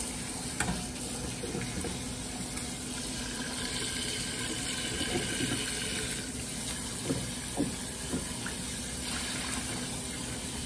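Water running steadily into a stainless-steel sink over a bowl of freshly blanched sliced ginger, rinsing it to wash it and take the heat out, with a few light knocks of the metal pot.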